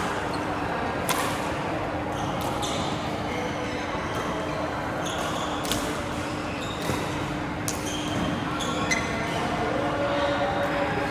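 Badminton rally: sharp racket hits on the shuttlecock at uneven intervals of a second or two, with voices in the background and a steady low hum.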